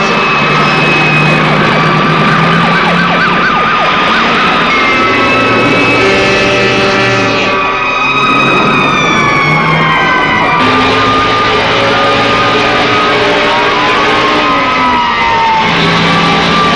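Several fire-engine sirens wailing at once, their pitches gliding up and down and overlapping, over steady held tones and a dense bed of noise.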